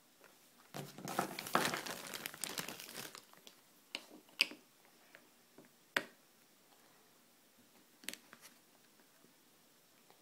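Crinkly rustling of handling noise for about two seconds, then a few sharp separate taps as small plastic Littlest Pet Shop figurines are set down on a wooden tabletop.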